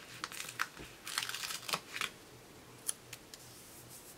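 Paper and sticker sheets handled by hand: a cluster of short crinkling, scratchy rustles over the first two seconds, then a couple of light ticks about three seconds in.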